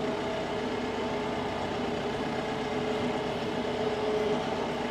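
Tractor engine running steadily at a low, even speed, with no change in load.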